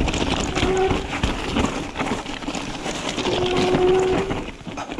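Mountain bike rattling and clattering down a rocky trail, tyres crunching over loose stones. The disc brakes squeal in a steady tone, briefly under a second in and for about a second around three to four seconds in.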